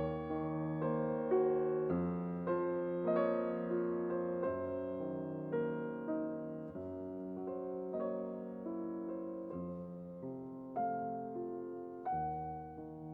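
Slow piano music, single notes and chords struck about once a second and left to ring and fade.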